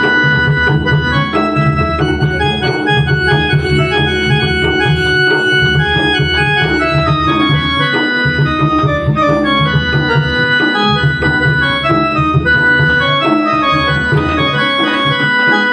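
Instrumental dance music: a melody on an organ-like electronic keyboard over a steady, even beat.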